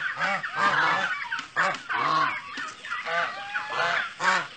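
A flock of domestic geese honking over and over, about two calls a second, several birds calling at once.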